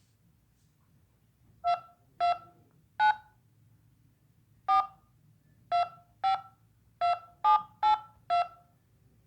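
Touch-tone (DTMF) keypad tones as a telephone number is dialed: ten short two-pitch beeps, three in quick succession, a pause of about a second and a half, then seven more.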